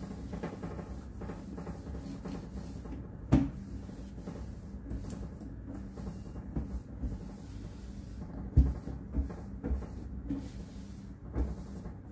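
A cloth rubbing and scrubbing over a stainless steel sink, with a few sharp knocks; the loudest come about three seconds in and again past eight seconds.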